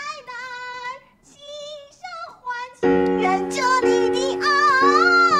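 A Chinese-language song with a high, child-like singing voice, sung with little or no backing at first; a bit under three seconds in, a fuller instrumental backing with held keyboard chords comes in under the singing.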